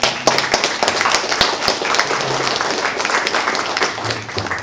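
Audience applauding: many hands clapping densely and irregularly, the loud sound of a crowd of listeners giving a panel a round of applause.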